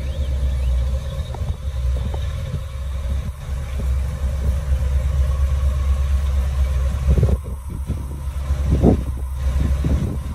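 1977 Chevrolet C20 pickup's 454 big-block V8 running at low speed as the truck pulls forward, a steady low engine note.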